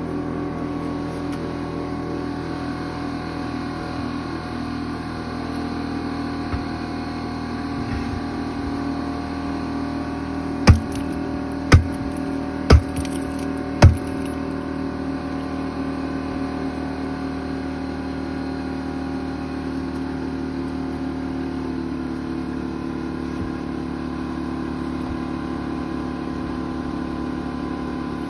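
A vehicle engine idling steadily, and about eleven seconds in, four loud knocks roughly a second apart: a boot stomping on a steel wheel to force the tire down onto the rim.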